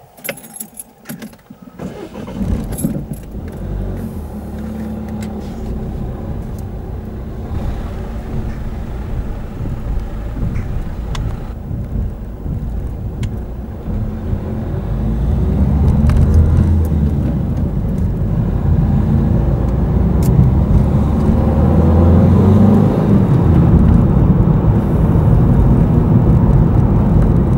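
A car pulling away and driving along a country road: clicking and rattling at first, then engine and tyre noise from about two seconds in, growing louder about halfway through as it picks up speed.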